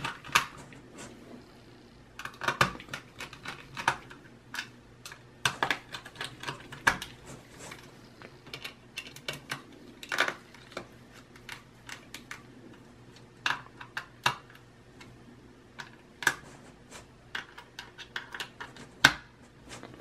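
Irregular sharp clicks and taps of small screws, a screwdriver and hard plastic parts being handled inside the open base of an HP EliteBook 840 laptop, as the 2.5-inch SSD is fastened back in its bay.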